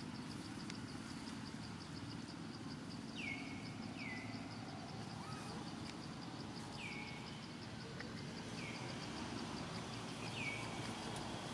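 Outdoor tree-canopy ambience: an insect's fast, steady pulsing trill, and a bird call that drops in pitch and then holds, heard five times, over a low background rumble.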